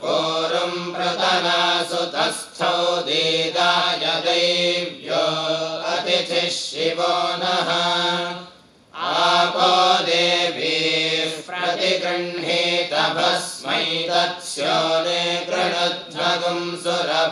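Group of young men chanting Vedic mantras in Sanskrit in unison, in short recited phrases. The chant breaks off briefly about eight seconds in, then resumes.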